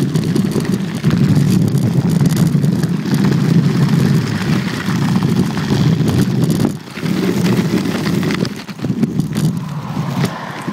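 Inline skate wheels rolling fast downhill over coarse asphalt: a loud, steady rumble with scattered small clicks and rushing air. It dips briefly about seven seconds in and eases off near the end.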